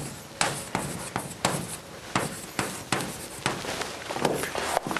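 Chalk writing on a chalkboard: a string of sharp, irregular taps and scratchy strokes, a few per second, as words are written.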